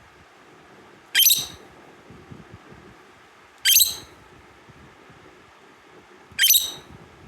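A lovebird giving three loud, shrill, rising call notes, each short and sharp, spaced about two and a half seconds apart.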